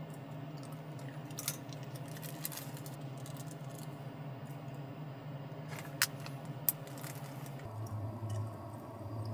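Small plastic supplement packets and bags being handled: faint crinkling with a few sharp clicks, over a steady low hum.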